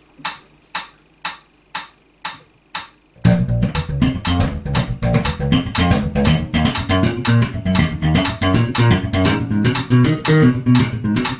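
A metronome clicks about twice a second. A little over three seconds in, a Sandberg MarloweDK electric bass comes in, played with the double-thumb slap technique: fast thumb down- and up-strokes and finger plucks in sixteenth-note triplets over the click.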